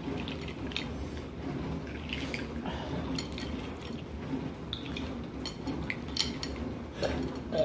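Eating and handling a seafood boil meal: scattered small clicks and clinks of crab shells, utensils and dishes.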